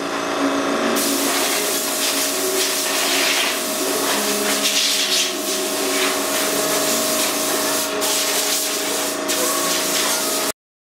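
Vacuum cleaner running steadily, sucking up dust and debris from the work site, with a steady motor hum under the rushing air noise. It cuts off suddenly near the end.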